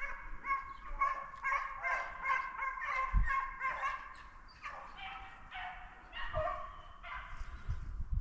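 Hunting hounds baying on the chase of a deer: a quick string of short repeated bays, giving way to longer drawn-out bawls in the second half. A low thump about three seconds in.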